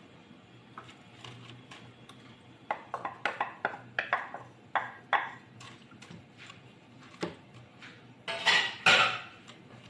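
A spoon clinking and scraping against cookware in a run of quick strokes, then two louder, longer scrapes near the end, as ingredients are mixed together.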